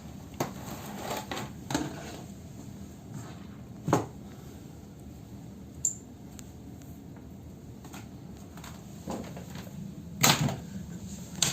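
Scattered light plastic clicks and knocks of network cables and a cable tester being handled, as RJ45 plugs are unplugged and the next cable is picked up. The clearest clicks come about 4 seconds in and again near the end.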